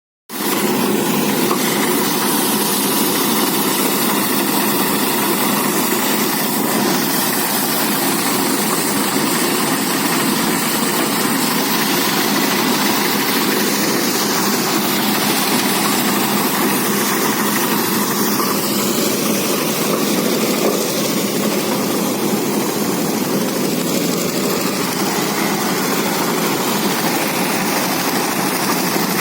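Engine-driven rice threshing machine running steadily, its engine and threshing drum making a loud, even mechanical noise that cuts in just after the start.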